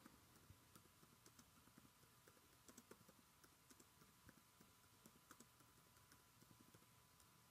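Faint typing on a computer keyboard: quick, irregular key clicks, a few a second.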